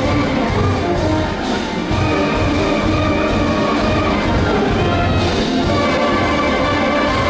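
Brass band playing a tune: held brass notes over a steady low beat.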